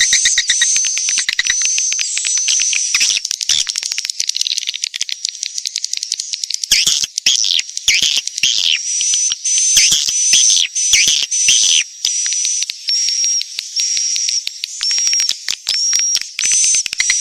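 Swiftlet lure recording for bird-nest farming: edible-nest swiftlets twittering, a dense, high chatter of rapid chirps and trills with a string of short repeated high notes, and louder bursts of chirping through the middle.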